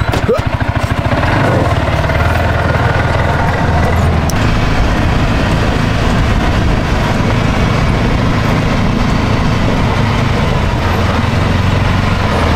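Small utility vehicle's engine running as it drives, its pitch shifting slightly a few times, under a steady hiss of wind and tyre noise.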